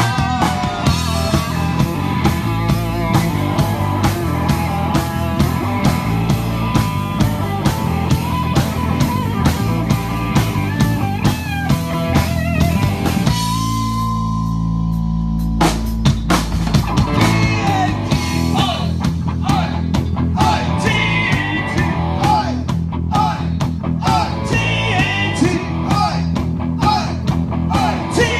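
Live rock band playing: drum kit, electric guitars and a singer. About halfway through the drums stop for a couple of seconds under a held chord, then the full band comes back in, with singing through the second half.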